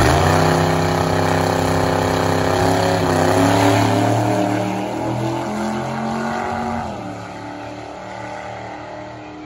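A dragster's engine launches hard from the starting line and pulls away down the strip at full throttle. Its pitch climbs at the start, then drops in steps around three and seven seconds in, and the sound fades as the car goes away.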